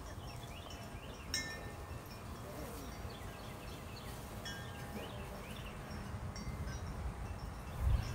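Metal chimes ringing, with a few clear tones struck now and then (one plainly about a second and a half in), over a low rumble that swells near the end.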